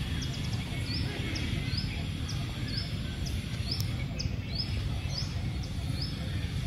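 A bird chirping over and over, short high notes about three a second, over a steady low rumble.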